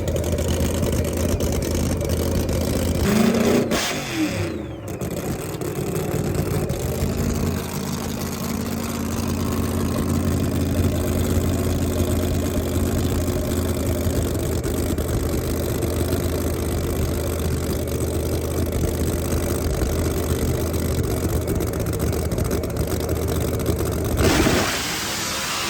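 Drag-race car engine running steadily, with a brief change in pitch about four seconds in.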